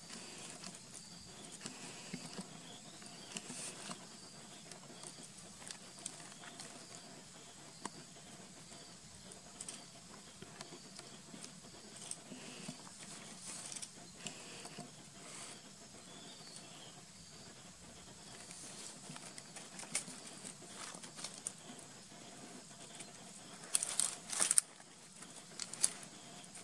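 Small rustles, taps and crackles as a baby monkey moves over stones and dry leaves, with a louder burst of crackling about 24 seconds in. A faint steady high hum sits underneath.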